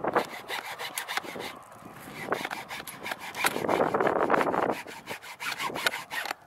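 Hand hacksaw cutting in uneven back-and-forth strokes, most steady and loudest a little past the middle, then slowing to scattered strokes.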